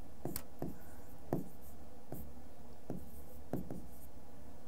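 Marker pen writing on a whiteboard: a run of short, irregular taps and strokes as numbers are written out.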